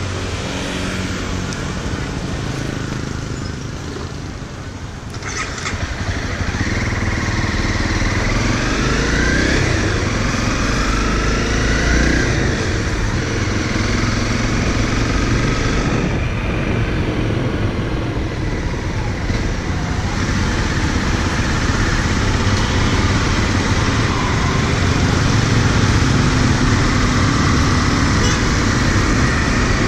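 Honda CRF motorcycle engine running while riding, growing louder about a fifth of the way in as the bike speeds up.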